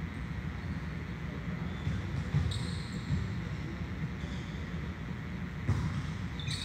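Volleyball being struck during serve-receive drills: sharp hits of the ball, one about two seconds in and another near the end, over a steady low background hum.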